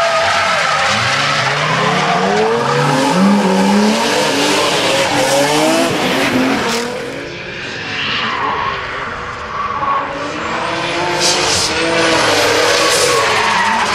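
Drift cars sliding sideways under power: engines revving up and down against a constant screech of spinning, smoking tyres. It eases off about halfway through, then is loud again near the end with sharp tyre screeches.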